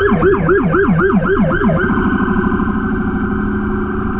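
Emergency vehicle siren in a fast yelp, two tones sweeping up and down about five times a second. About two seconds in the sweeps stop and the tones hold steady.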